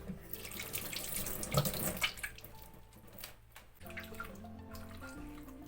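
Water running from a tap into a sink, a steady rush over the first couple of seconds that then fades away.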